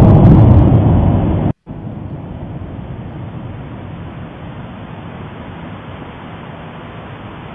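Loud blast of a volcanic explosion from the Popocatépetl stratovolcano, fading over about a second and a half before it cuts off abruptly. A steady low rumbling noise follows.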